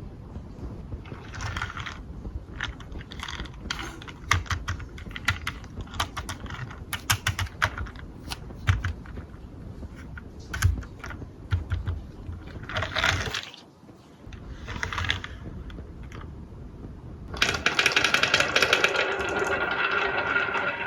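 Glass marbles rolling and clacking down a HABA wooden marble run, with many irregular clicks as they hit the track pieces and each other. Near the end a louder, steady mechanical buzzing rattle starts.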